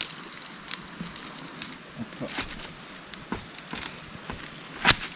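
Kitchen knife chopping green onions on a thin cutting board: a few scattered taps, the loudest near the end, over a faint steady hiss.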